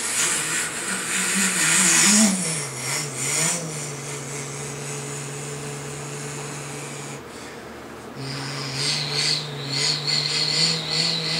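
Bruder toy dump truck's electronic sound module playing a recorded truck engine: it starts suddenly, wavers up and down in pitch for a few seconds, then holds a steady idle. It stops for about a second and then starts up again.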